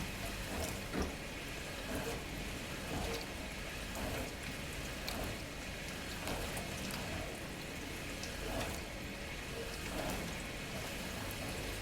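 Dishwasher running mid-cycle: water sprays and splashes against the inside of the tub with a steady hiss, broken by short, irregular splashes about once a second.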